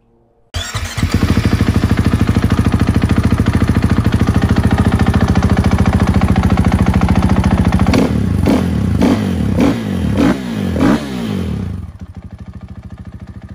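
KTM 450 EXC's single-cylinder four-stroke engine running at a fast idle, then blipped about five times with quick revs, before dropping back to a quieter idle near the end. It is running on a freshly rebuilt fuel pump, with fuel pressure back up where it is supposed to be.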